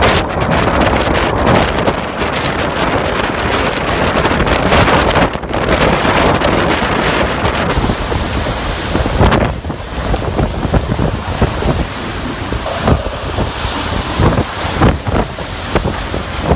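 Strong storm wind blowing in gusts and buffeting the microphone: a loud, continuous rushing noise with many short thumps.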